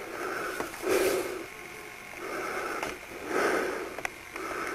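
A man breathing hard and fast close to the microphone, about five heavy breaths in and out roughly a second apart, with a short click about four seconds in.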